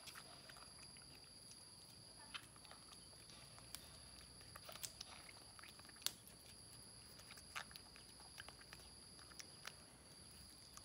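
Near silence: faint scattered clicks and taps, with a faint steady high whine underneath.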